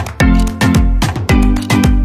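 Upbeat background music with a steady drum beat, its low drum hits dropping in pitch.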